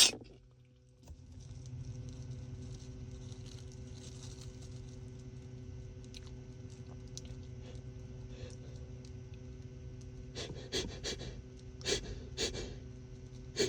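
A man breathing and panting between sneezes, with a few short, sharp catching breaths in the last few seconds as the next sneeze builds, over a steady low hum.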